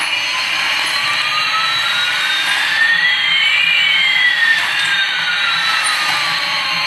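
Electronic jet-engine sound effect, like that of a toy airliner: a steady rushing hiss with one whistling tone slowly rising and another slowly falling, crossing about halfway through.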